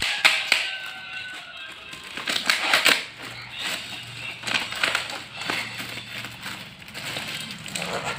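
Black plastic mailer bag crinkling and rustling in irregular bursts as it is handled and pulled open.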